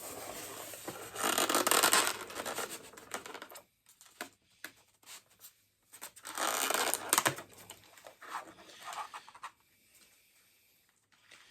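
A model locomotive's packaging being rubbed and scraped by hand as the locomotive is worked out of it. The rustling comes in stretches: a long one in the first three seconds, two shorter ones in the middle, then a quiet spell near the end.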